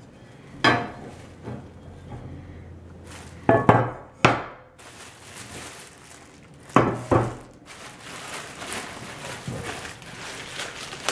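Heavy cast iron grate pieces knocking and clunking several times as they are handled and set down, then plastic wrapping crinkling steadily from about halfway through as a piece is unwrapped.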